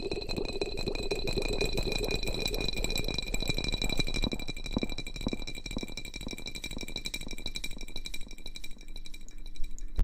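Close-microphone ASMR rustling: a dense, rapid crackle that thins out near the end, over a faint steady high-pitched whine.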